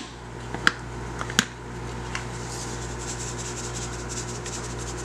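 A few sharp clicks as the flip cap of a plastic salt shaker is worked, then salt being shaken out in a fast, fine rattle.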